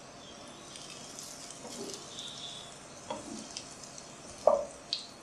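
Egg-battered bread slices sizzling and crackling in hot oil in a nonstick frying pan. A slotted spatula knocks against the pan twice, the louder knock about four and a half seconds in.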